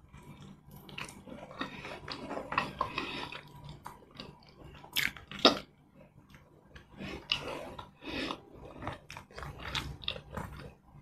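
Close-up eating sounds of a person eating smoked catfish curry and rice by hand: wet chewing, lip smacks and mouth clicks, and sucking on her fingers. Two louder smacks come a little past halfway.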